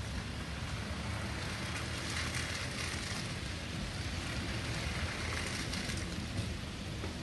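Steady rushing hiss of rain and muddy floodwater flowing along a walled channel, over a low rumble of wind on the microphone.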